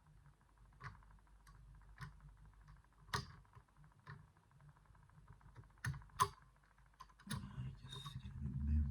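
Scattered small clicks and taps of a pick and tension tool working the levers of an 8-lever safe lock, roughly one a second, with two sharper ones close together past the middle. Near the end a low rumble of the lock being handled joins in.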